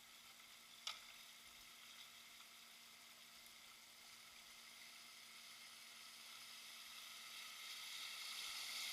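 Faint, steady hiss of river water rushing over shallow rapids, growing gradually louder toward the end, with a single sharp click about a second in.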